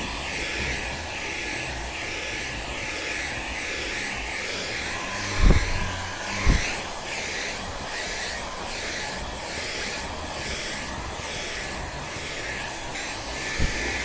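Dreame V10 cordless vacuum running with its small stiff-bristle brush attachment on sofa upholstery: a steady motor whine and airflow rush, swelling and easing in a regular rhythm as the brush is swept back and forth. Two short low thuds come about five and a half and six and a half seconds in.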